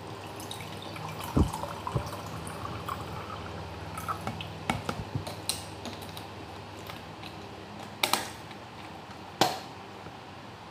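Coconut water poured from a carton into a mug, the liquid running and dripping in the first few seconds. Scattered sharp clicks and knocks follow as the carton and mug are handled, the loudest about a second and a half in and twice near the end.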